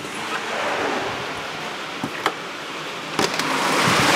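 Heavy rain pouring down, a steady hiss that grows louder about three seconds in, with a few sharp ticks.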